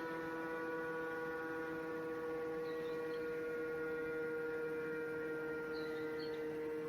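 Motor siren sounding one long, steady tone.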